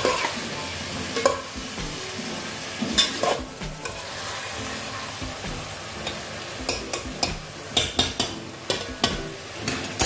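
Metal spatula stirring and scraping moong dal and vegetables frying in a metal pot over a steady sizzle, as the dal is dry-fried with the spices. Sharp scrapes and knocks of the spatula against the pot come through, bunched a few seconds in and again in the second half.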